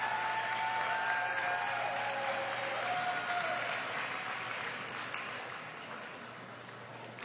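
Audience applauding, with a few voices in the crowd; the applause dies down gradually over the last few seconds.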